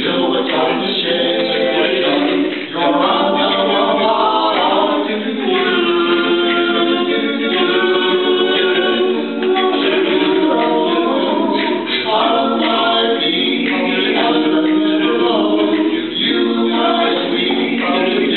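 Male vocal quartet singing a cappella, with a brief dip about three seconds in.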